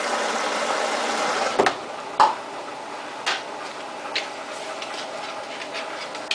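Samsung WF8804RPA washing machine running a denim wash: a steady rushing noise drops away about one and a half seconds in, then several sharp clicks and knocks from the load tumbling in the drum, the loudest a little after two seconds, over a quieter machine hum.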